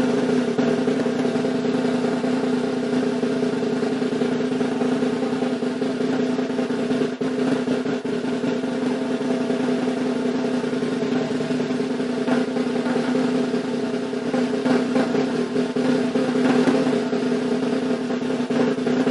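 A long, continuous drum roll, steady and unbroken apart from a momentary dip about seven seconds in, swelling slightly near the end.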